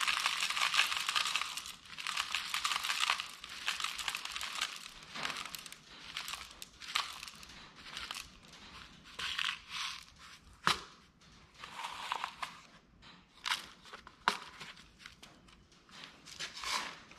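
Stiff brown paper cups rustling and crinkling as they are handled, with a dense rustling hiss in the first two seconds, then irregular crinkles and a few sharp clicks.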